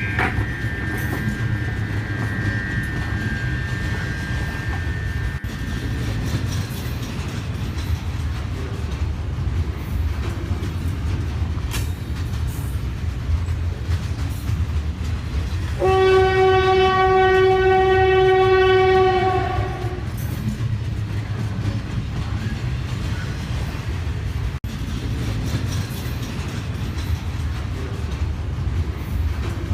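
Train running on rails with a steady low rumble and occasional wheel clicks. A higher horn tone fades out over the first few seconds, and a little past halfway the train's horn sounds once, loud and steady, for about three and a half seconds.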